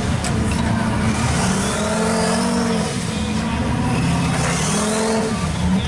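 Rock-crawling truck's engine revving hard as it climbs over boulders, the pitch rising and falling several times as the throttle is worked.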